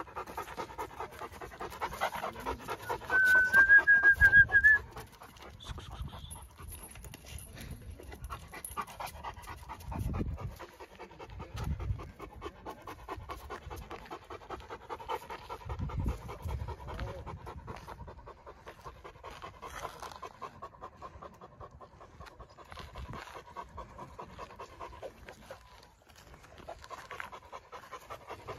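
Harlequin Great Dane panting rapidly and steadily, mouth open and tongue out. About three seconds in, a loud high whine sounds for under two seconds, rising slightly in pitch.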